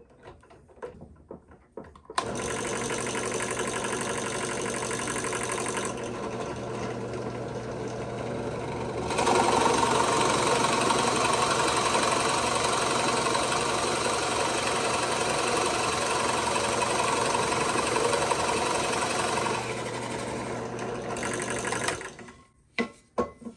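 Harbor Freight Central Machinery 5-speed drill press switched on about two seconds in and running with a steady hum. It gets louder from about nine seconds in as a 1-inch Forstner bit bores into red oak, which it cuts like butter with no strain. The motor switches off about twenty-two seconds in, followed by a few knocks.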